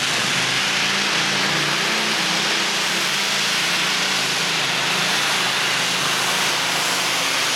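Rolls-Royce Griffon Mk 58 V12 aircraft engine of a light-modified pulling tractor running hard under load during a pull. It is a loud, steady engine note with no break.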